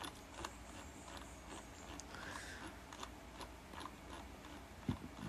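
Faint, irregular ticks of a computer mouse scroll wheel, a few a second, as pages are scrolled, with a soft thump near the end.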